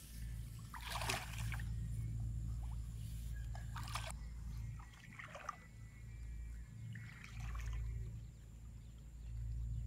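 Shallow paddy water sloshing and splashing as someone wades through a flooded rice field: a handful of separate splashes a couple of seconds apart over a steady low rumble.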